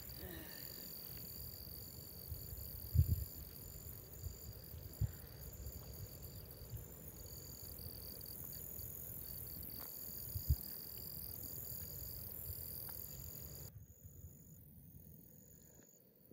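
A faint insect chorus chirping in a steady high trill, with a second, higher trill pulsing on and off, and a few low thumps. The chorus cuts off abruptly about three-quarters of the way through.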